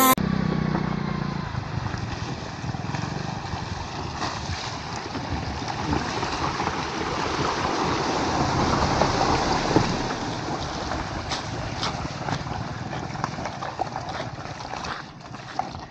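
Honda Amaze sedan driving slowly through a shallow, rocky stream: its tyres splash and churn the water over the engine's low running. The splashing is loudest as the car passes, about eight to ten seconds in, then fades as it climbs out onto gravel.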